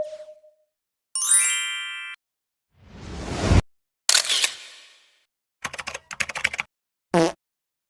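A string of separate short stock sound effects: a brief blip, a bright multi-tone ding, a rising swell that cuts off suddenly, a noisy burst that fades away, a quick run of clicks like keyboard typing, and a short pitched blip.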